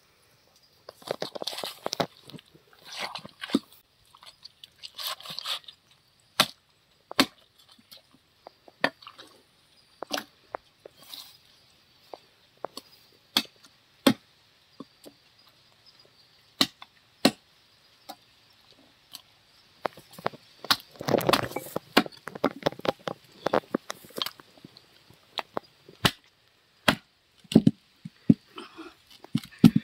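Butcher's cleaver chopping a whole chicken on a wooden chopping block: sharp, irregularly spaced knocks of the blade striking the wood, with denser flurries of cutting noise about a second in and again around twenty seconds in.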